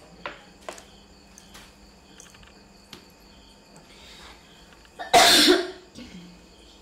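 A single loud cough about five seconds in, lasting under a second, over a few faint clicks and taps.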